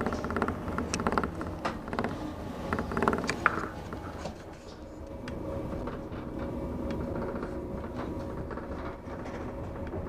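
Mont Blanc Express electric train running, heard from inside the carriage: wheels clicking and clattering over the rails for the first few seconds, one sharp click about three and a half seconds in, then a quieter, steadier rumble with a faint steady whine.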